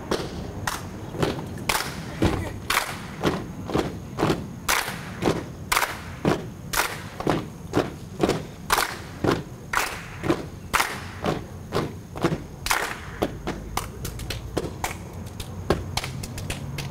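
Body percussion: sharp claps and stamps in a steady rhythm of about two hits a second, with quicker hits near the end.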